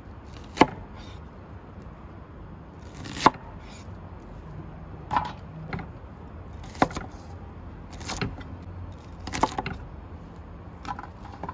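Cleaver-style kitchen knife chopping red onion and garlic on a wooden end-grain cutting board: single sharp chops a second or two apart, with some scraping of the blade on the wood.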